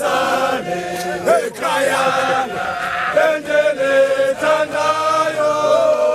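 A large group of men singing an isiXhosa hymn together, holding long notes in several parts.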